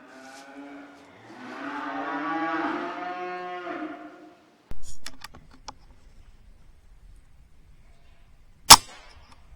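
A cow lowing in the cattle shed: one long moo lasting about three seconds. The sound then cuts off abruptly, and a few faint clicks are followed near the end by one very loud, sharp crack.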